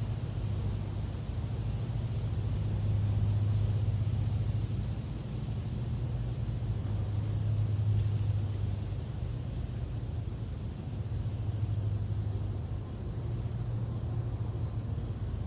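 Crickets or other insects chirring continuously in a pulsing high pitch, over a steady low machine-like hum.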